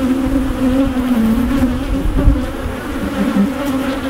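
A mass of honey bees buzzing loudly around opened hive boxes, a continuous drone whose pitch wavers slightly as bees fly close to the microphone. The colony has been disturbed by the hive being opened and split, and is "mad".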